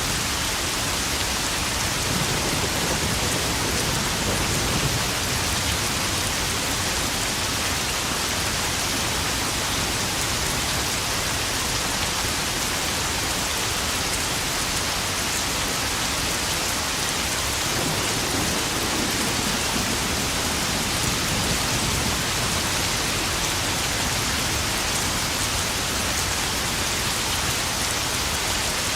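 Steady heavy rain pattering onto puddles, with low rumbles of distant thunder swelling under it twice.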